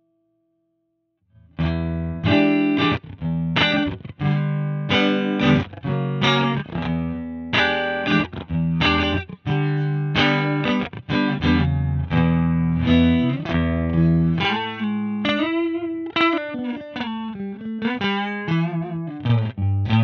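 Electric guitar played through a TC Electronic Mimiq Mini Doubler pedal, a lightly driven rhythm part with many quick chord and note attacks. It starts after about a second and a half of silence.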